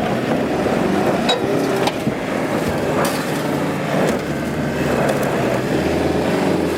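Toyota Land Cruiser's engine revving up and down as it drives off-road, with a few sharp knocks in between.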